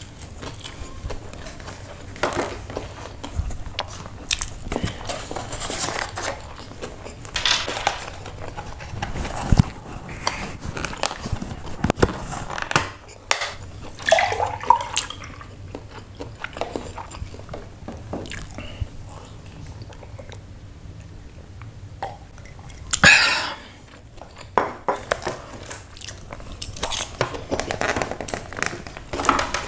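Close-up eating sounds of a person slurping and chewing bakmi noodles, with many short wet mouth clicks. About halfway through, a drink is poured from a carton into a glass.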